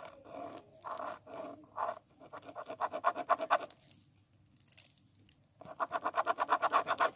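Black gel pen scribbling rapidly back and forth on paper, going over a line again and again, in quick scratchy strokes about nine a second. It comes in two runs, with a pause of about two seconds in the middle.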